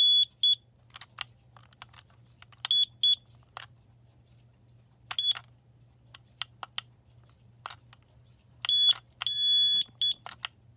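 Kidde LP2 carbon monoxide alarm sounding irregular clusters of short, high-pitched beeps, a few held for about half a second. The owner takes this as its end-of-life signal, its 10 years up.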